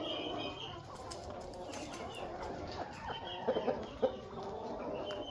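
Backyard hens clucking in short, scattered calls as they settle onto the roost for the night.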